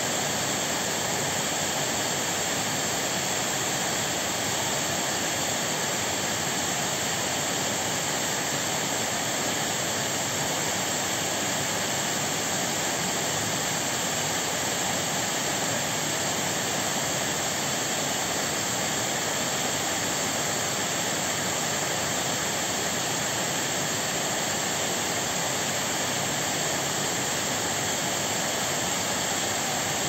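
Wide, low creek waterfall spilling over rock ledges into a pool: a steady, unbroken rush of falling water.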